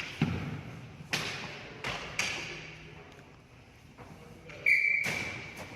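Ball hockey play: a series of sharp knocks from sticks, the ball and the boards, four in the first couple of seconds and another around five seconds in, with a brief high steady tone just before that last knock.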